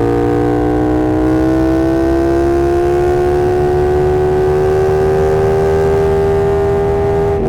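2020 KTM 1290 Super Duke R's V-twin engine running under throttle, its pitch rising slowly and steadily as the bike pulls in gear, then dipping slightly near the end.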